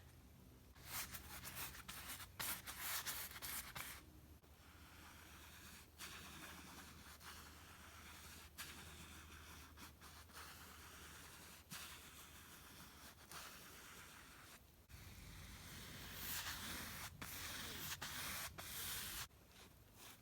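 Paintbrush bristles stroking over canvas, a scratchy brushing in repeated strokes. It is louder for a few seconds near the start and again near the end, and softer in between.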